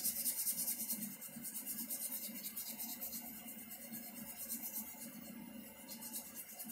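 Fast, scratchy rubbing or scrubbing against metal at a car's front steering knuckle, in quick repeated strokes that stop shortly before the end.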